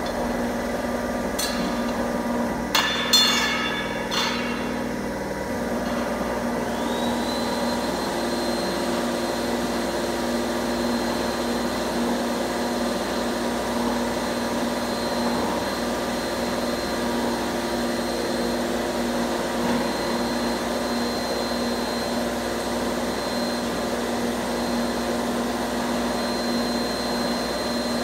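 Electric angle-bar bending machine running steadily as it rolls a steel angle bar into a ring, with a few sharp metal clanks about three to four seconds in. A thin high whine comes in about seven seconds in and holds.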